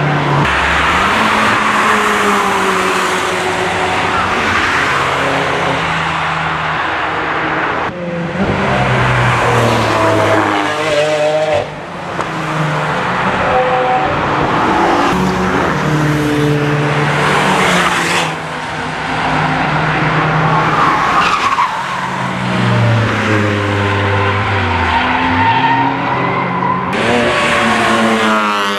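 Cars driven hard past one after another, engines revving up and dropping back through gear changes, with some tyre squeal in the corners.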